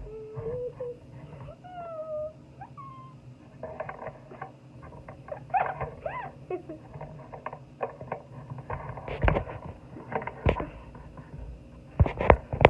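Domestic cat meowing: a few short meows in the first three seconds and another about six seconds in. Several sharp knocks or bumps follow later on.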